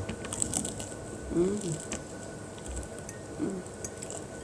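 Close-up chewing and wet mouth sounds from eating a fried chicken drumstick: small scattered clicks and smacks, with two short vocal murmurs, one about a second and a half in and another about three and a half seconds in.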